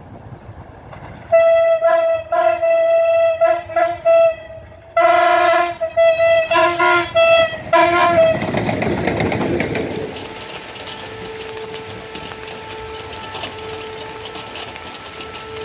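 A locomotive horn sounding a long series of short, broken toots for about seven seconds as a passenger train approaches. The train then passes with a rising rush about eight seconds in, followed by a steady rumble and clatter of wheels on rail.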